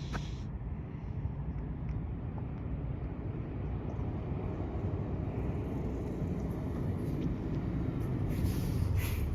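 Transit bus engine running, a steady low rumble that slowly grows louder, with a short hiss of air near the end.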